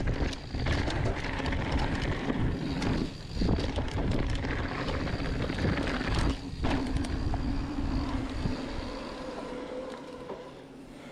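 Something moving along with a steady hum over wind rumble on the microphone. The rumble drops out briefly twice, and the sound fades near the end.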